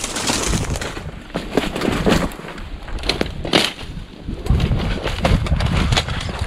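Footsteps crunching through snow and dry brush, with twigs and stems snapping and scraping past, while wind buffets the microphone in low rumbles.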